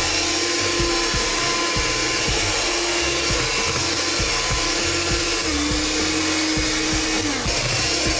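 Electric hand mixer running steadily, its beaters whipping cream with icing sugar into a thick, fluffy cream.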